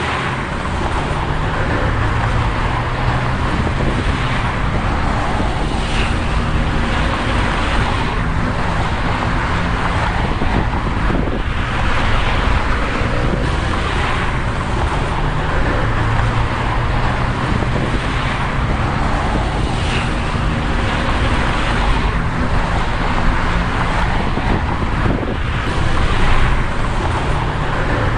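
Car sound effect: a car engine running steadily under dense road and traffic noise, its low hum shifting slowly in pitch, with soft swells of passing noise every couple of seconds.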